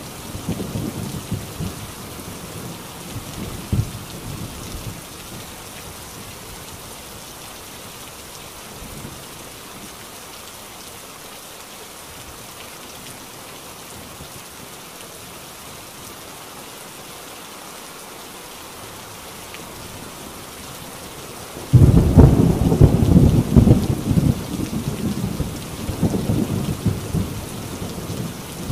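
Steady rain drumming on a tin roof, with thunder rumbling away in the first few seconds. About 22 seconds in, a sudden loud thunderclap breaks and rolls on as a long rumble.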